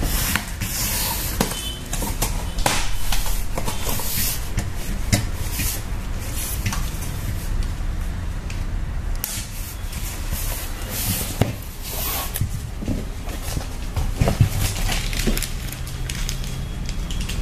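Cardboard box being handled and opened: a run of scrapes, rustles and knocks as the flaps are pulled open, over a faint low steady hum.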